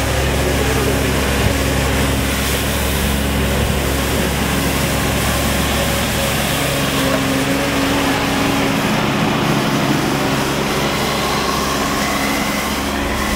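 Hako Jonas 1500 ride-on floor sweeper running steadily as it drives and sweeps up a steep ramp.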